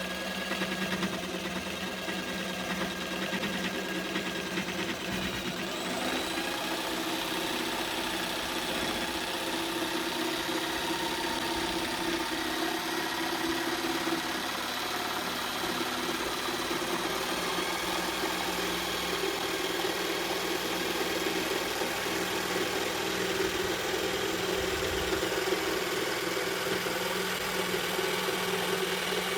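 Bosch PST 800 PEL 530-watt electric jigsaw running steadily, cutting wood. About six seconds in, its motor speed rises, then holds steady.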